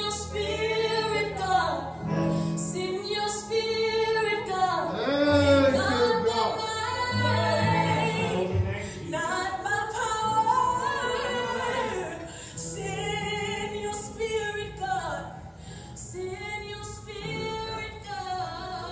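Worship song with a woman singing held, sliding phrases over long, sustained low chords, softening in the last few seconds.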